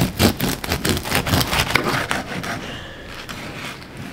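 Knife sawing down through the crisp crust of a sourdough loaf onto a wooden cutting board: a rapid run of short, scratchy crackles that fades about two and a half seconds in.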